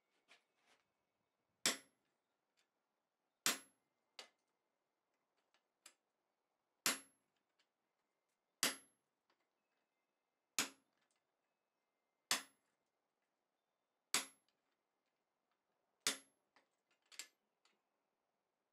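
Hammer blows on the top die of a blacksmith's guillotine tool, driving its butcher dies into a red-hot mild steel bar to set in the shoulder of a tenon. Eight heavy strikes come about every two seconds, each with a short metallic ring, with a few lighter taps between them.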